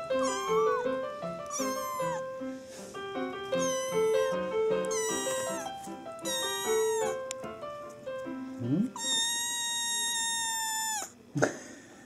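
Munchkin kitten meowing about six times in high, short calls that bend in pitch. The last meow is long and drawn out, lasting about two seconds and falling at its end.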